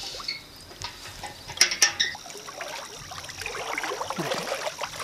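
Shallow muddy water splashing and trickling as hands feel around inside a bamboo fish-cover basket, searching for fish, with a couple of sharper splashes about a second and a half in.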